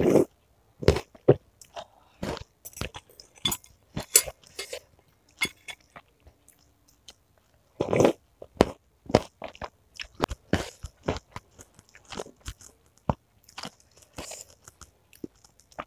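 Close-miked mouth chewing of meatballs with crunchy cartilage (tulang rangu): irregular crisp crunches and wet mouth clicks, with a louder cluster about eight seconds in.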